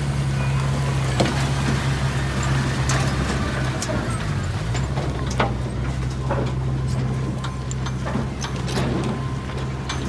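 Mini crawler bulldozer's diesel engine running steadily, its note dipping briefly about four seconds in, with scattered sharp clanks and knocks from the machine at work.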